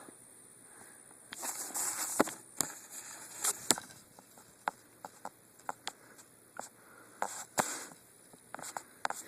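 Footsteps rustling through dry ground cover, with scattered sharp snaps and cracks at irregular intervals.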